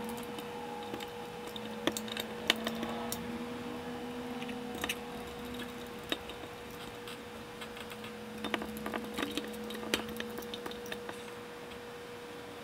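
Scattered small metallic clicks and taps of a screwdriver working screws into the aluminium heat-sink chassis of a Bose Lifestyle 28 amplifier module, over a steady faint hum.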